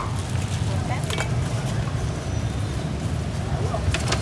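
Steady low rumble of street traffic, with a sharp cleaver knock on a wooden chopping block at the very start and two lighter knocks about a second in and near the end.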